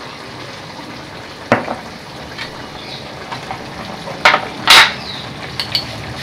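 Chicken pieces frying in a non-stick pan as a steady hiss, with a few sharp clinks of a metal utensil against the pan, the loudest about three-quarters of the way through.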